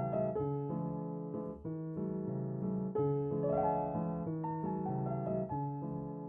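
Music: piano or electric piano playing a slow, repeating pattern of chords and notes.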